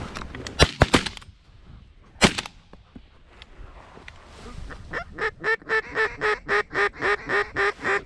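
A cluster of sharp bangs about a second in and another just after two seconds. From about five seconds in comes a steady run of mallard-type quacks, about four a second.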